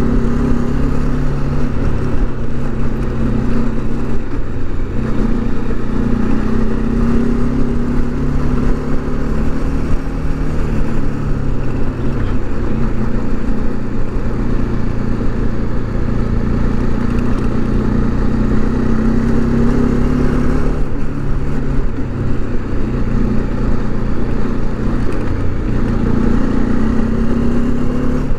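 Motorcycle engine running steadily at cruising speed, heard from the rider's own bike, its pitch shifting slightly a couple of times.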